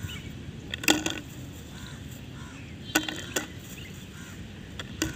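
Large lumps of calcium carbide dropped from a plastic bag into a small plastic bottle, making a few sharp clicks and knocks against the plastic. They come in small clusters: about a second in, around three seconds, and again near the end.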